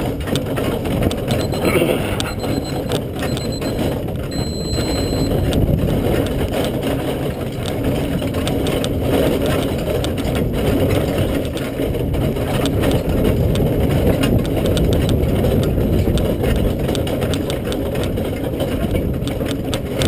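Horse-drawn marathon carriage travelling at a trot along a sandy trail: a steady low rumble from the wheels and running gear, with continual rattling and knocking.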